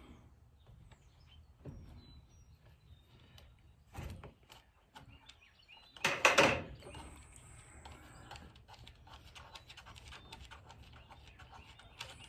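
Small clicks and knocks of a tool and hands working on a battery chainsaw's plastic bar cover and nut, with one louder clunk about six seconds in, followed by a run of rapid small clicks.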